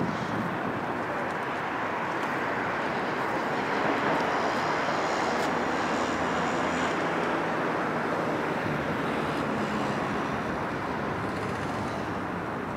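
Steady rumble of distant engine noise, swelling a little about four seconds in and slowly easing off.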